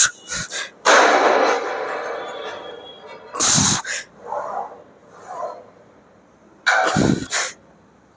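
Forceful exhalations and strained grunts from a man pressing heavy dumbbells on an incline bench. There is a sharp blast of breath about every three seconds, one with each rep, and a sharp click right at the start.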